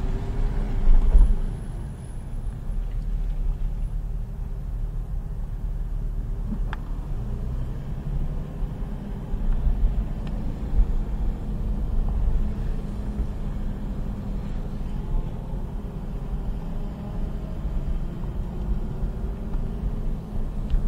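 Porsche GT3's flat-six engine running at low revs as the car rolls slowly, heard from inside the cabin as a steady low rumble, with a brief louder surge about a second in.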